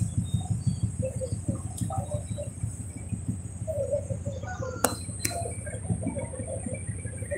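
Low, steady rumble aboard a roll-on/roll-off car ferry under way, with two sharp clicks about five seconds in.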